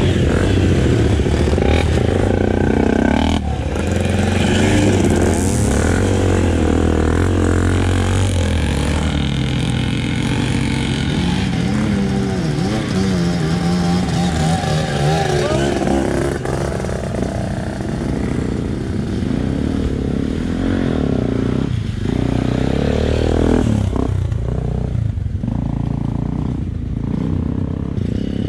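Trail motorcycle engine running under load off-road, its revs rising and falling over and over as the throttle is worked, with the bike clattering over rough ground.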